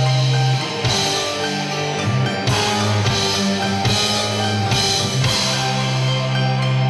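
Live instrumental rock from a keyboard, bass and drums band playing horror-film soundtrack music: a held low note under a drum fill on a Tama kit, with several cymbal crashes between about one and five seconds in.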